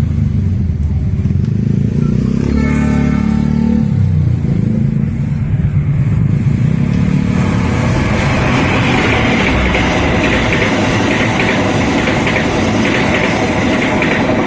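A train passing at speed: a heavy low rumble for the first half, a brief higher tone about three seconds in, then a dense, rushing rail clatter from about eight seconds on.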